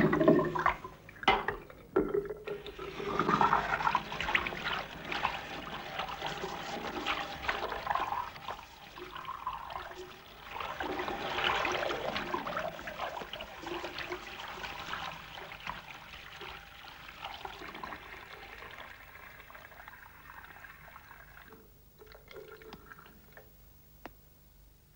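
Tap water running into a washbasin while hands splash and wash in it, with a few sharper splashes at the start. The running slowly weakens and dies away near the end.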